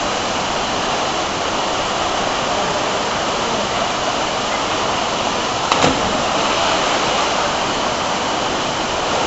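Steady rush of a waterfall pouring into a creek pool, with one brief knock a little past halfway.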